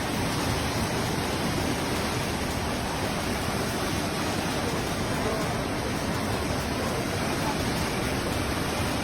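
Floodwater rushing in a steady, unbroken roar.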